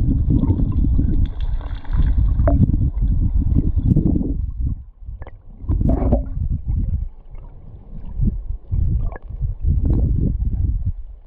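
Heard underwater: river current flowing around a submerged camera, a low churning rumble that swells and eases, with a few sharp clicks and knocks.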